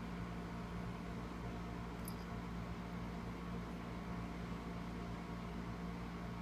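Steady low hum with hiss, unchanging throughout, like an appliance or fan running in a room; a faint brief high tick about two seconds in.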